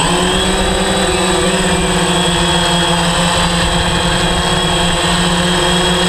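DJI Phantom 3 quadcopter's electric motors and propellers in flight: a loud, steady hum of several pitches held level.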